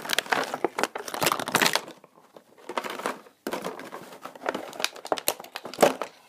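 Clear plastic blister packaging of an action figure being handled and crinkled, in irregular stretches of crackling with a short lull about two seconds in.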